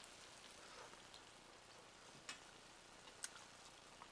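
Ground beef and broccoli simmering in water in a frying pan, a faint steady hiss with a couple of sharp pops or ticks.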